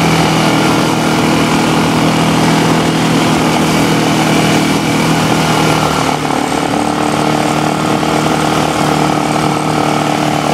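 Kazuma ATV engine running steadily as the four-wheeler is ridden along. Its pitch and loudness drop slightly about six seconds in.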